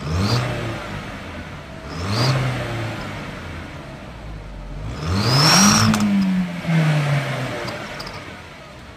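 Car engine revved three times, the third rev longest and loudest. A fake turbo whistle adds a high whine that rises and falls with the revs, clearest on the third.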